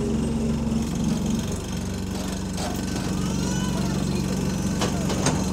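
The diesel engine of SE92, a single-decker bus, idling steadily, heard from inside the bus with a rough vibrating rattle. The rattle comes from parts shaking against the engine. A couple of sharp clicks come near the end.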